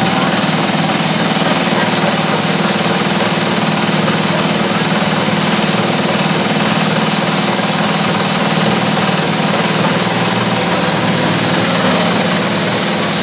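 Belt-driven fish-feed making machine running steadily under load as feed mix is poured into its hopper: a loud, even mechanical drone with a fast low throb.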